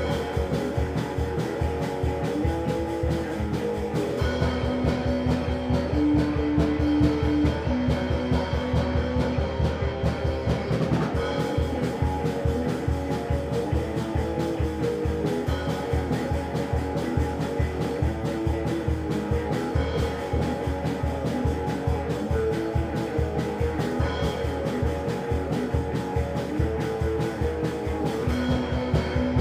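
Crust punk band recording: electric guitar and drum kit playing a steady, fast beat. The band gets a little louder about four seconds in.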